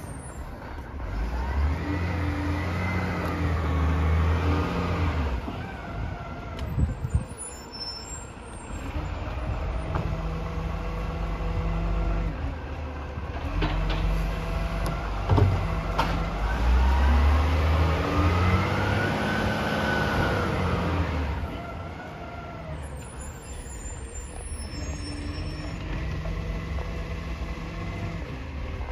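Garbage truck engine revving up twice, each time with a whine that rises and falls, as it works its hydraulic bin lifter. It drops back to a steady idle in between, with a few sharp knocks.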